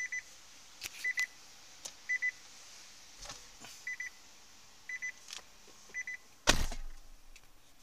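Short electronic beeps from a Nissan LEAF's climate control panel, six of them about a second apart, as the temperature setting is stepped up by button presses, with light clicks between them. A single loud knock about six and a half seconds in.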